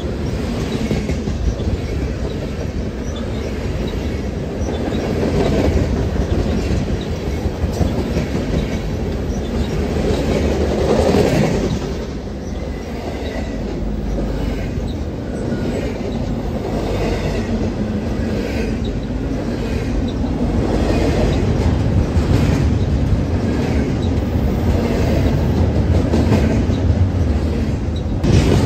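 Train cars rolling past on the rails: a steady rumble with a regular clicking of wheels on track, swelling briefly about ten seconds in.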